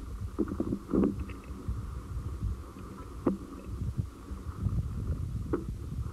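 Low rumbling wind noise on an outdoor microphone, with a few short, faint sharp sounds; the loudest is about a second in.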